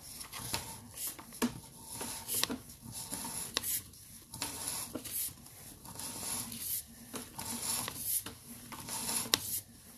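Sewer inspection camera's push rod being pulled back by hand through the line: irregular rubbing and scraping with a few sharp clicks.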